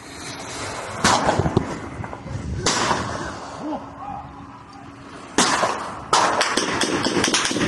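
Gunfire: loud single shots about a second in and near three seconds, then more shots from about five and a half seconds that turn into a dense run of rapid fire.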